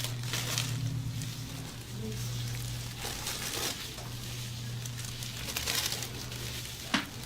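Rustling and crinkling of movement against clothing and the treatment table during hands-on chiropractic work, over a steady low hum, with a single sharp pop about seven seconds in.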